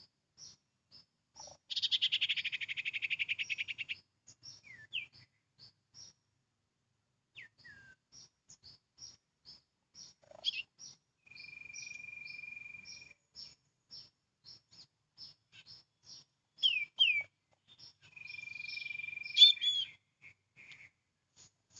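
Birds calling: a loud rapid chattering trill, several short down-slurred whistles and two held whistled notes, over a steady series of short high chirps about twice a second.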